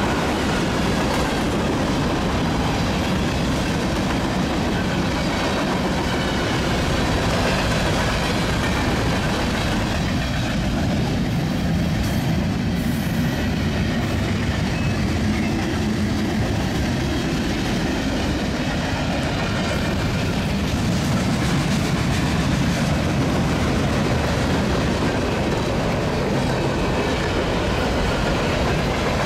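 Union Pacific mixed freight train's cars rolling past steadily, steel wheels running over the rails.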